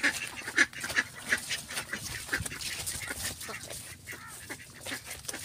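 Domestic ducks quacking, a quick run of short repeated calls, busiest in the first second or so.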